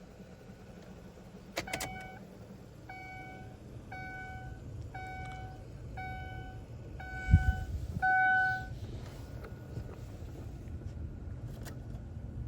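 Car's dashboard warning chime ringing about once a second, seven times, with the last ring the loudest and longest. It comes from a 2006 Ford Taurus with a key in the ignition during key programming. A click comes just before the chimes, and a single low thump comes near the last ones, over a steady low hum.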